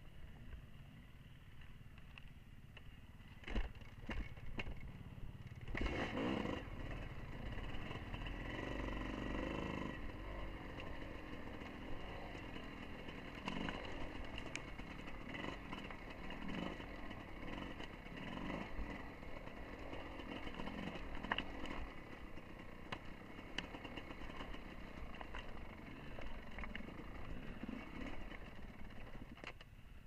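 Dirt bike engine running at low revs, its pitch rising and falling, with knocks and rattles from the bike over rough ground. The first few seconds are quieter with a couple of knocks, and the engine comes up about six seconds in.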